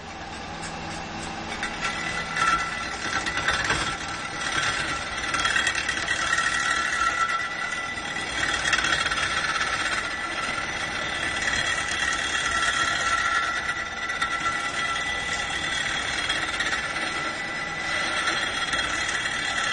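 Lathe running while a cutting tool grinds a spinning block of pink rock salt into a candle holder. It makes a steady scraping, grinding sound with a high whine held throughout, swelling and easing a little as the cut goes on.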